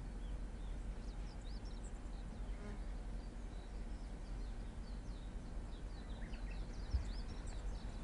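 Small birds chirping and twittering in quick high notes, busiest in the second half, over a steady low rumble. A brief low thump about seven seconds in.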